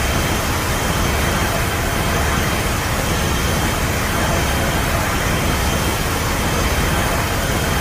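Edited monster sound effect: a loud, steady rushing noise with a deep rumble underneath, like a jet engine or a sustained breath blast.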